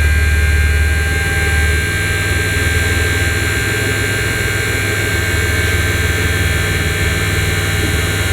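Mitsubishi Pajero II Up&Down hydraulic suspension pump running steadily with a thin whine while raising the vehicle, over the engine idling. A heavy low hum eases off about two seconds in.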